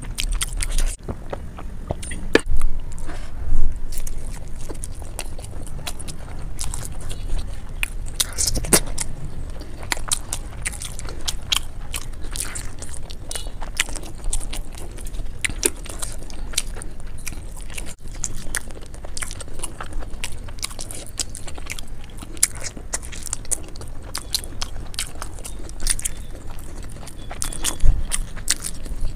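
Close-miked eating: biting and chewing fried momos dipped in curry, with many short crunchy clicks, played back at double speed.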